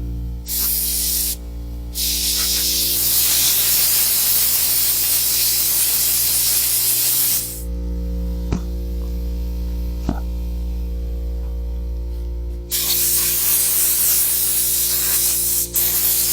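Compressed air blowing dirt out of a lawn mower's air filter in long hissing blasts: a short burst, a long one of about five seconds, a pause of about five seconds, then another long blast near the end with a brief break.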